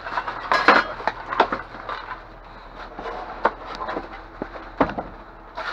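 Rummaging through discarded lamps and debris in a dumpster: irregular knocks, clatters and rustles as items are shifted and handled.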